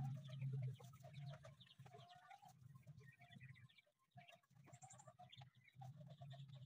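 Faint clucking of free-ranging chickens and small bird calls over a low background hum that drops out for a moment about halfway.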